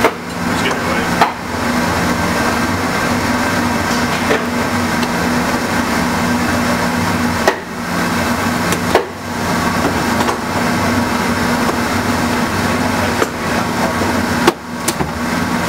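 Steady blower noise of hand-held hot air welders running, with a constant low hum, broken by a few sharp knocks as TPO membrane is handled and pressed on a wooden bench.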